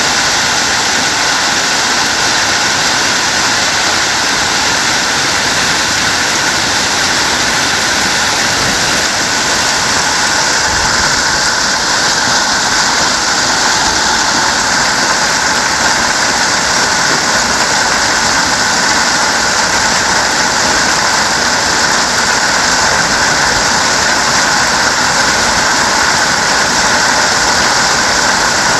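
Heavy hail falling, a loud, dense, unbroken clatter of hailstones that holds steady throughout.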